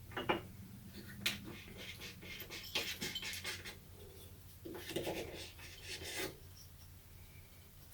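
Wood being handled on a wooden bench top: two sharp knocks in the first second or so, then two spells of scraping and rubbing as boards and wedges are shifted into place.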